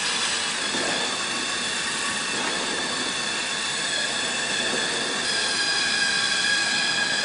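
Waring Big Stix commercial immersion blender's 1-horsepower motor running steadily with the whisk attachment, whipping a large batch of mashed potatoes. Its whine grows a little louder and clearer about five seconds in.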